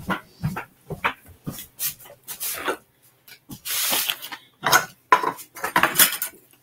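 Cookware and utensils clinking and knocking in a string of short clatters, with a brief hiss about halfway through.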